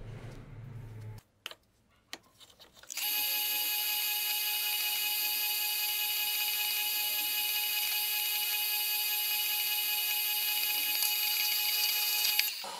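Drill press running with a steady whine while the bit drills pin holes through wooden knife handle scales. It starts about three seconds in and cuts off abruptly near the end.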